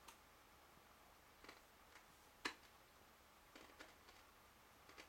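Near silence with a light hiss and a scattering of short, faint clicks, the loudest about halfway through.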